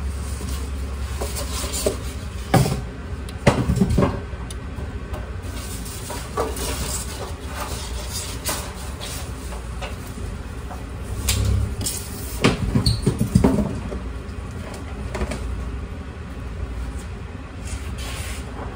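Cardboard packaging and wooden crate slats being handled and tossed aside, with scattered knocks, clatters and scrapes, the loudest bunched a few seconds in and again past the middle, over a steady low hum.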